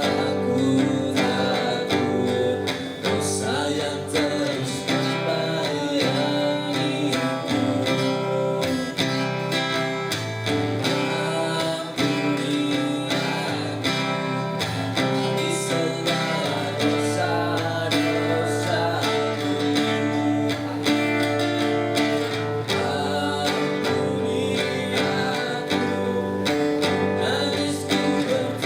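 Acoustic band music with a strummed acoustic guitar, an instrumental passage between sung lines of a song.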